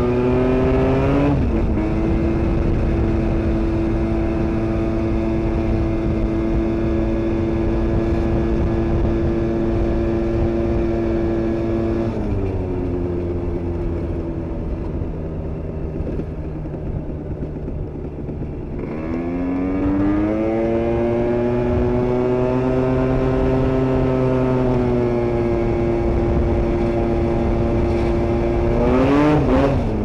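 Aprilia SR 125 two-stroke scooter engine with a 172 cc Malossi kit, heard while riding. It holds a steady pitch, drops as the throttle eases about twelve seconds in and holds lower, then climbs again around nineteen seconds and settles, with a quick rev flare near the end.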